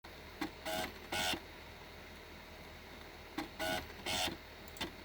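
ASUS ZenDrive U9M external DVD writer working: a click followed by two short buzzes of its head mechanism, the pattern repeating about every three seconds over a low steady hum from the drive.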